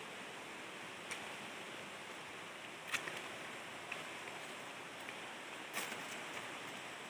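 Steady rushing noise of the waterfall, with a few short sharp clicks about one, three and six seconds in.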